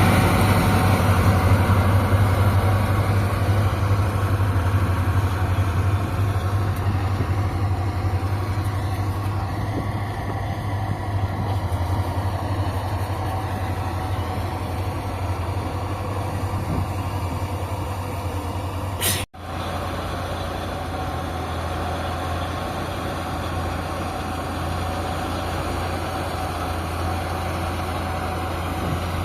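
Kubota MU5502 tractor's diesel engine running steadily with a deep drone. About 19 seconds in, the sound cuts out for an instant with a click, then the engine runs on a little quieter.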